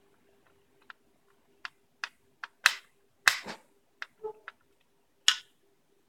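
About a dozen irregular sharp clicks and knocks from a screwdriver and the plastic LEGO Mindstorms EV3 brick being handled just after a screw is driven into its battery compartment. The loudest knocks come about halfway through and near the end.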